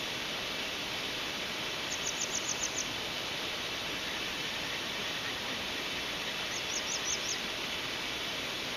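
Steady rush of a mountain stream. A bird twice gives a quick run of five or six high notes, about two seconds in and again some five seconds later.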